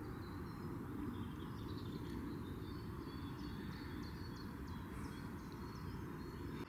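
Faint lakeside ambience: many short, high bird chirps over a steady low rumble.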